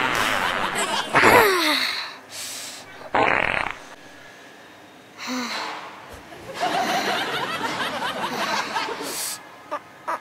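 Laughter-like comic vocal sounds with no words, with a short noisy burst about three seconds in and more laughing-type sounds in the second half.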